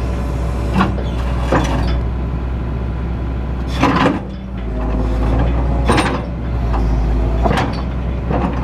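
Excavator engine running steadily with a low rumble, its note dipping briefly a few times as load changes, while about six sharp knocks and clunks sound at irregular intervals from the machine working.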